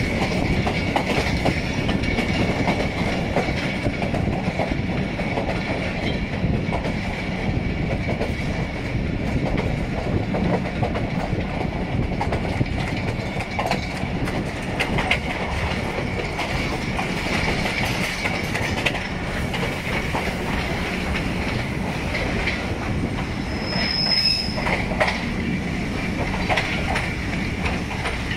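Passenger train rolling along the track, heard from on board: a steady rumble with a constant high wheel squeal and occasional clacks. A brief, higher-pitched squeal comes about four seconds before the end.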